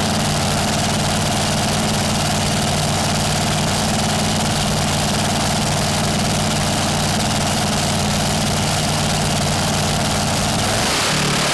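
Top Alcohol Dragster's supercharged engine idling with a steady, loud, lumpy note; near the end the note changes as the engine picks up.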